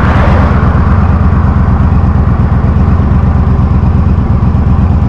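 Motorcycle engine running steadily, with wind rushing over the microphone.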